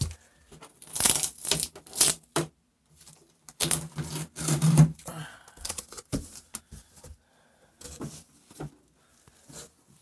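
Irregular bursts of rustling and rubbing handling noise, with short quiet gaps between them, as the phone camera is moved about and its microphone brushed.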